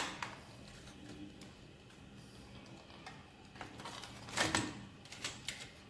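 Light plastic clicks and rattles of a DVD writer's tray mechanism being worked out of its steel casing by hand, a few scattered clicks with the loudest cluster about four and a half seconds in, quiet in between.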